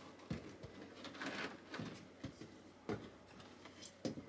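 Scattered light knocks and rustling as electrical wires are pushed and worked through a tight bundle of cables behind a boat's helm panel.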